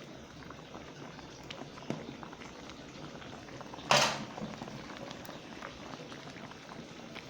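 Pot of lentil soup boiling, a steady bubbling with many small pops, and one brief loud noise about four seconds in.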